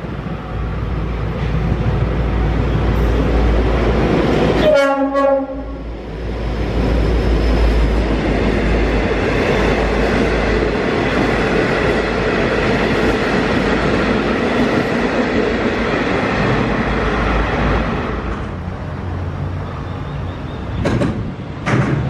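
V/Line N-class diesel-electric locomotive hauling a passenger train past at close range. It gives one short horn blast about five seconds in, followed by the steady rumble of the locomotive and the carriage wheels on the rails, which dies away after about eighteen seconds.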